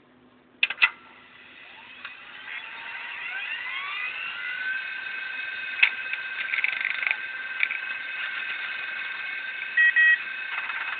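Custom boot sound effect on a Samsung Omnia 2 I8000 phone. It opens with two sharp clicks, then a synthesized swell of several upward-gliding tones that settles into a held chord. Scattered clicks are mixed in as hard-disk noises, and two short beeps come near the end.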